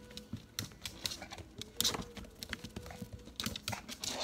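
A small dog's claws clicking and pattering irregularly on a hard floor as she moves quickly around close to the microphone.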